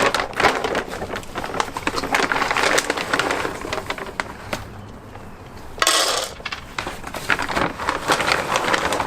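Dry dog kibble being scooped out of a plastic bag: crackly rattling of the pellets and crinkling of the bag, with one louder rush about six seconds in as a scoop is poured.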